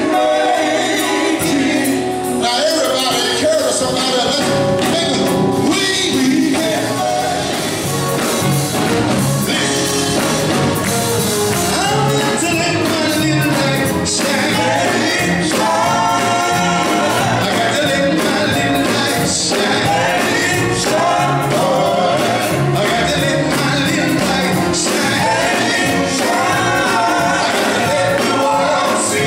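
Live gospel music: a male vocal group singing lead and harmony, backed by electric guitar and bass guitar.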